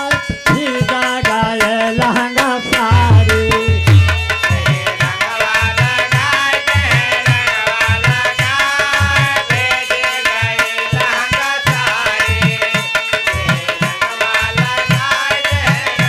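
Instrumental interlude of a Faguni (Holi) folk song: a harmonium plays the melody over a steady dholak beat.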